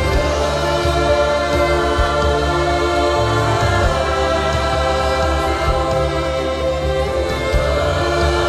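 Live worship band music: a bowed cello and a bass guitar under long held chords.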